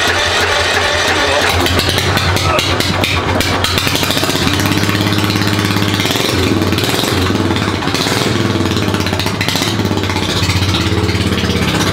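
Ride-on lawnmower engine running loud through a custom 2-inch stainless straight-pipe exhaust, its note shifting up and down several times from about four seconds in as the throttle changes.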